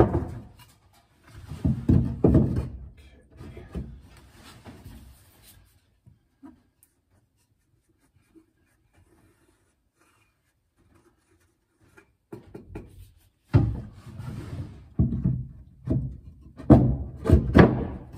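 Wooden framing blocks being handled and knocked against a plywood wall and worktop: separate thuds and knocks in the first few seconds, a few seconds of near quiet about halfway through, then a quick run of knocks near the end.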